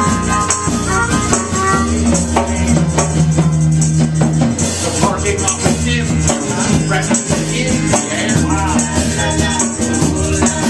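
Live band playing a song, with acoustic guitar, electric bass and sung vocals, and a hand-held shaker or tambourine rattled steadily along with the beat.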